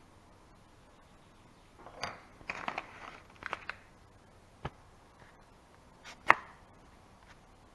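A few short knocks and clatters, then a single click and a sharp, louder click near the end, like something small being handled; no motor runs.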